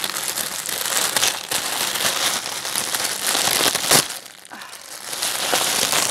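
Plastic mailing package crinkling and being torn open by hand, with a sharp crack about four seconds in and a short lull after it before the rustling resumes.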